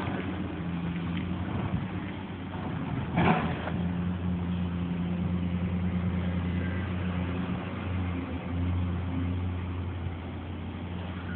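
An engine running steadily with a low hum, and a short clunk about three seconds in.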